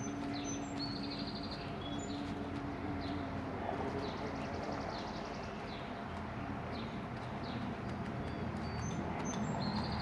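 Small birds chirping repeatedly in short, high, sweeping notes and a brief buzzy trill, over a steady background of outdoor noise. A low rumble grows near the end.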